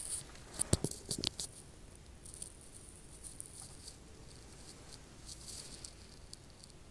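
A few light clicks and knocks in the first second and a half, from handling of the handheld camera, then faint steady room hiss.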